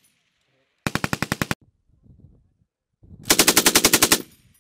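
M240B 7.62 mm belt-fed machine gun firing two short bursts at about thirteen rounds a second: one of about ten rounds a second in, and one of about a dozen rounds near the end.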